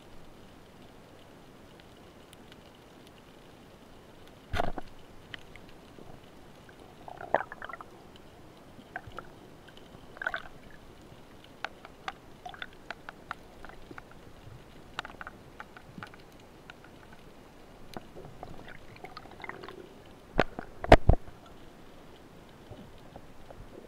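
Scattered clicks and knocks heard underwater through the camera housing. There is one sharp knock about four and a half seconds in and two louder knocks close together near the end.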